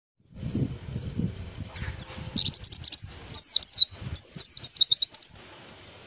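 Caged white-eye (pleci) singing a fast, twittering song of high, quick down-slurred whistles, breaking off about a second before the end, with some low rumbling noise under its start.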